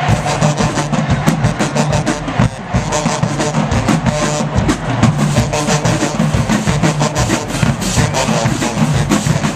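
Music with a driving drum beat: rapid percussion hits over a low bass line.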